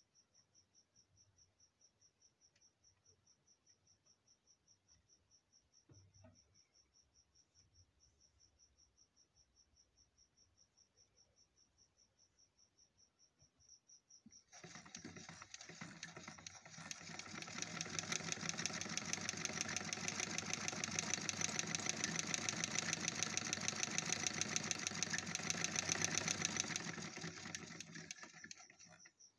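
A cricket chirps steadily. About halfway through, a freshly oiled Mahnoor household sewing machine starts running: its needle and shuttle mechanism clatters rapidly, picking up speed for a few seconds, running steadily, then slowing to a stop near the end.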